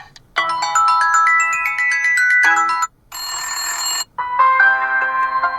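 Ringtone previews played through an HONOR 600 Lite 5G phone's speaker as different tones are picked in turn: a rising run of electronic notes, a short burst of chiming noise about three seconds in, then another melody starting about four seconds in. Each preview cuts off abruptly as the next tone is selected.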